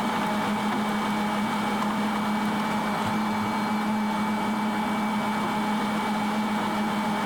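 Combine harvester running steadily during corn harvest: an even machine hum with a thin, steady whine over it.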